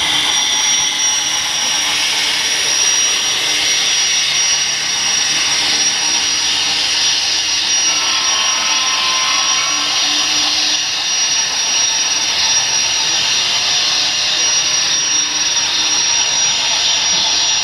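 Model trains running past on the layout: a steady whir of metal wheels rolling on rail and small motors, with a thin steady high whine.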